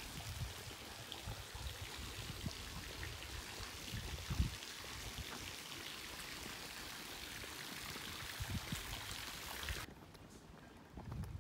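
Steady rush of running water, with a low knock about four seconds in; it cuts off abruptly about ten seconds in.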